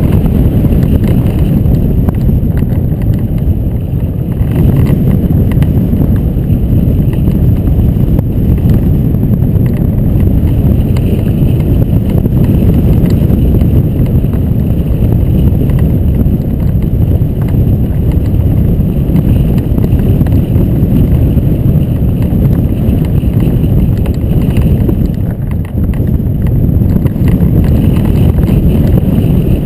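Wind rushing over a camera on a hang glider's keel in flight: a loud, steady low rumble of wind buffeting the microphone, easing briefly near the end.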